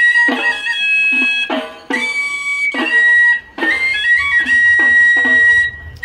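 Instrumental background music: a flute-like melody of long held high notes over notes struck with sharp attacks at an even pace.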